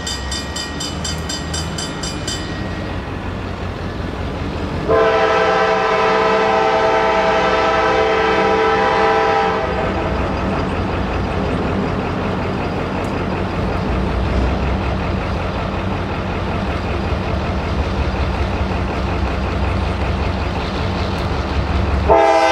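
CSX diesel locomotives on a light-engine power move, their engines rumbling throughout. A high, rapid bell ringing stops about two seconds in. The locomotive horn gives one long blast from about five to nine seconds, and another begins near the end.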